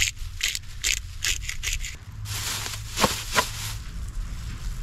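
A small pepper shaker shaken hard, a quick run of rattling shakes about five a second for the first two seconds. Then a thin plastic bag crinkles and rustles as it is handled, with a couple of sharper clicks.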